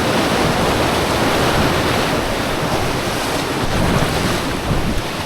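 Rushing whitewater of a river rapid: a loud, steady rush of churning water.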